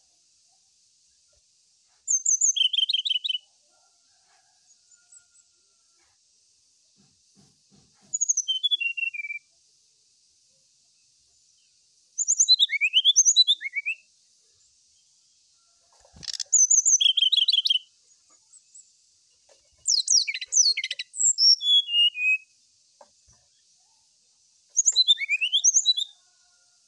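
Brown-chested jungle flycatcher singing: six short phrases of quick, high whistled notes, several sliding down in pitch, with a few seconds between phrases.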